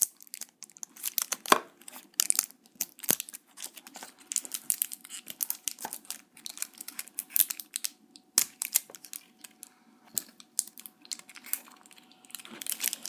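A toy blind-bag wrapper crinkling and tearing as it is pulled open by hand, in irregular sharp crackles with short pauses.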